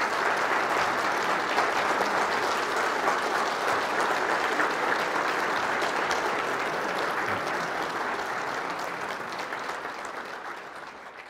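Audience applauding steadily, dense clapping that slowly fades away in the last few seconds.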